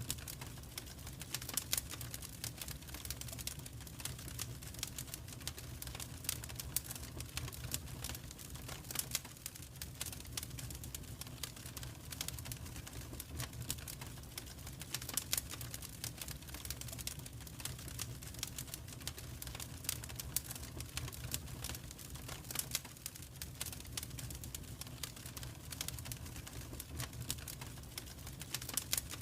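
Wood fire in a fireplace crackling, with dense, irregular sharp pops and snaps over a low, steady rumble.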